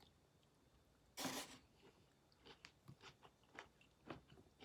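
A person eating close to the microphone: a short crunch about a second in, then a run of small, soft chewing clicks.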